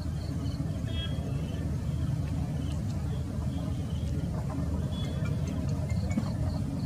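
Low, steady rumble of a distant Airbus A320's CFM56 jet engines as the airliner flares and touches down.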